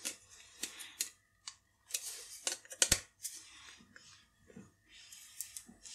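Open pair of scissors used as a turning tool on a stiff screw-in plastic articulation of a 3D-printed focus platform: scattered small clicks and brief scrapes of the metal blade on plastic, with one sharper click about three seconds in.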